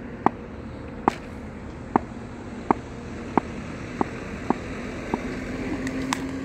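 A run of light, sharp knocks about once every three quarters of a second, then, about six seconds in, a sharper crack as a cricket bat strikes the ball, over a steady low hum.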